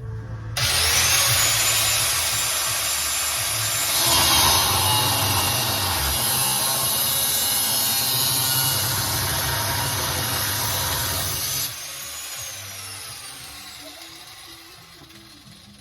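Grinder starting up with a quickly rising whine, then cutting metal with a loud, harsh grinding for about eleven seconds. It is then switched off and spins down with a falling whine that fades away.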